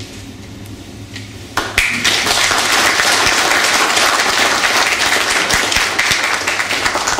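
Small seated audience applauding; the clapping breaks out about a second and a half in and keeps up steadily to the end.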